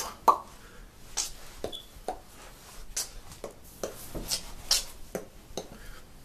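A person dancing in a small room, making short knocks and taps at an even beat of about two a second; the loudest comes right at the start.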